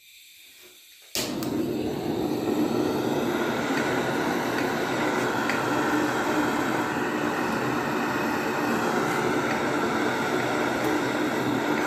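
Handheld gas blowtorch clicking alight about a second in, then hissing steadily while its flame is held on the base of a reverse-flame pyrolytic burner to light it.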